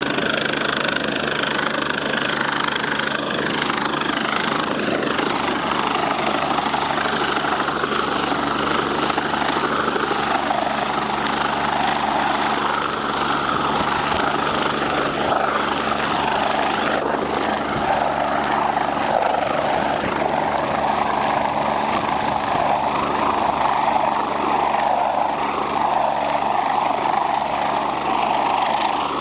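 Helicopter running, a loud, steady wash of rotor and engine noise with a constant low hum.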